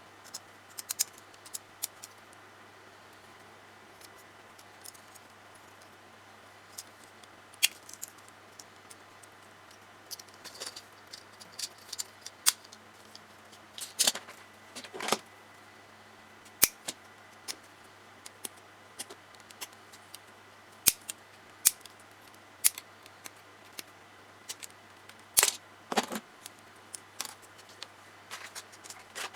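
Irregular small clicks and snaps of plastic Tamiya Mini 4WD kit parts being handled, trimmed and fitted together during assembly, some in quick clusters, over a faint steady hum.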